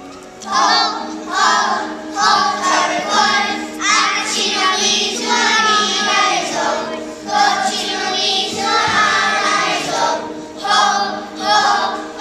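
A group of young children singing a song together, in phrases with short breaks between them. A steady instrumental accompaniment holds notes underneath.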